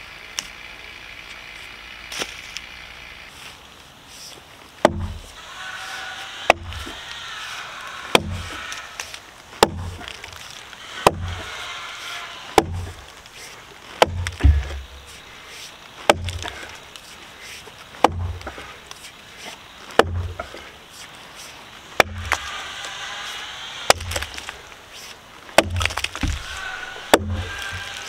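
An axe chopping roots off a robinia log's root end, with a sharp blow about every one and a half to two seconds from about five seconds in.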